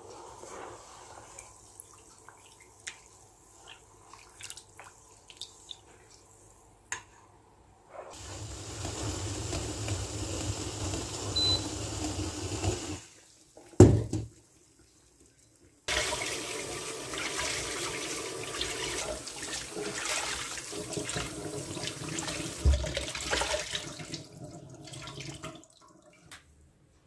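Kitchen tap running into a sink while cloth rags are rinsed and wrung out. Before that come faint scattered clicks, a shorter stretch of running water, and a single loud clank from the steel bowl.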